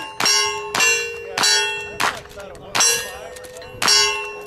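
Steel shooting targets struck by gunfire in quick succession, about six hits, each one clanging and ringing out with a metallic tone before the next.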